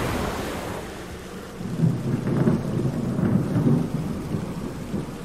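Thunderstorm: steady rain with thunder rolling, loudest from about two seconds in.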